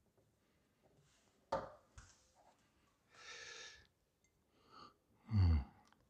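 A sharp knock about a second and a half in, then breath sounds from someone sipping hot coffee: a breathy rush around the middle and a short, loud, low breath falling in pitch near the end.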